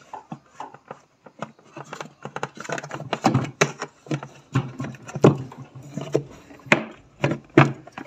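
Irregular clicks and knocks of a refrigerator's plastic evaporator fan cover as it is pried and pulled loose from its clips by hand.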